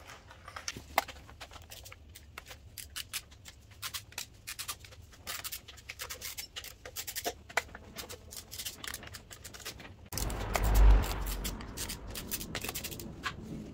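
Hand ratchet wrench clicking in quick runs as the valve-cover bolts are undone, with a burst of low rumbling noise about ten seconds in.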